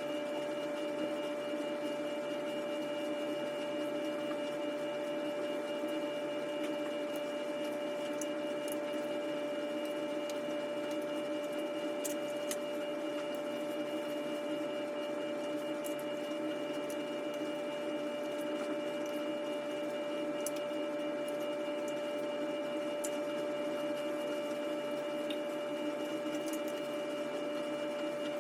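A small electric power tool's motor running continuously at a steady high speed, giving an even whine with no change in pitch or load.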